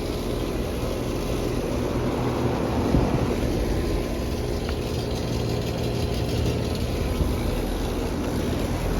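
Outdoor HVAC units running: a steady mechanical hum of compressors and condenser fans, with a low drone and fan noise throughout.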